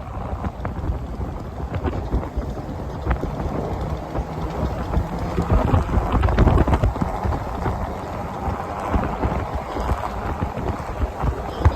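A 4x4 vehicle driving off-road: a low rumble with wind buffeting the microphone and scattered knocks, swelling about six seconds in.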